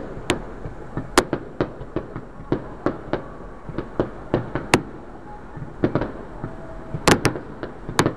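Fireworks finale: aerial shells bursting in a rapid, irregular string of bangs, several a second, with the sharpest reports about a second in, near the middle and around seven seconds in.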